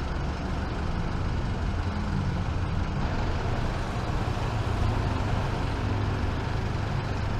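Steady low rumble of road traffic going by, with no single event standing out.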